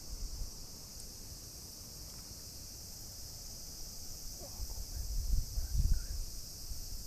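Wind buffeting the microphone in low rumbling gusts, strongest about five to six seconds in, over a steady high-pitched insect chorus.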